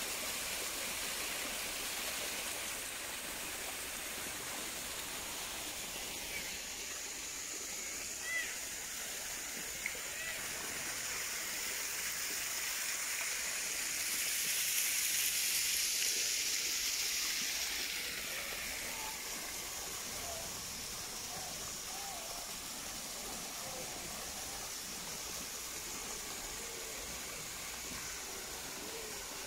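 Steady rush and splash of a small waterfall falling down a rock face, swelling louder for a few seconds midway.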